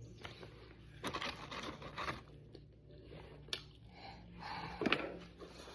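Chewing and crunching on fried food, a few irregular crunchy bites and chews.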